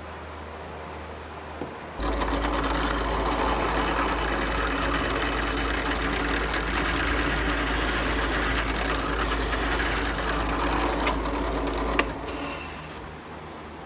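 A workshop power tool's electric motor running steadily for about ten seconds, with a sharp click near the end before it winds down.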